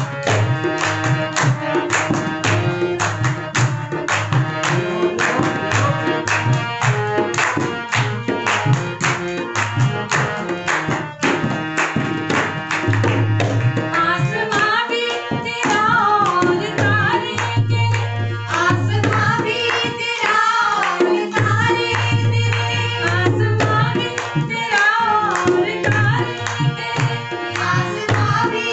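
Devotional bhajan played on a harmonium and a dholak, with a brisk, steady drum rhythm and hand-clapping. Voices start singing about halfway through.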